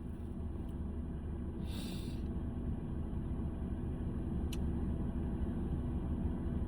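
Steady low rumble with a faint hum, like a running vehicle heard from inside, with a brief hiss about two seconds in and a single small click past the middle.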